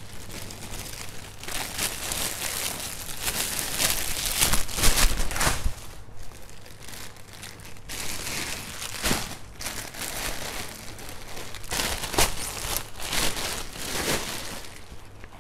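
Clear plastic bags crinkling and rustling as shoes are dug through and pulled out of them, in uneven swells, loudest about four to five seconds in.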